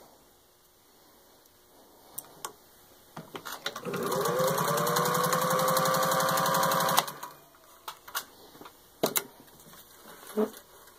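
Singer 201 sewing machine, driven by its 1950s replacement motor, stitching through three layers of soft leather. The motor winds up to speed about three and a half seconds in, runs steadily with rapid, even needle strokes for about three seconds, then stops suddenly. A few light clicks and knocks come before and after the run.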